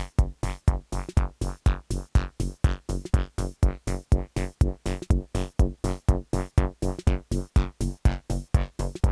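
Techno played live on analogue synthesizers and drum machines: a staccato sequenced pattern of short pitched notes with a kick, about four hits a second, each note cut off quickly, with filter sweeps falling in the upper range.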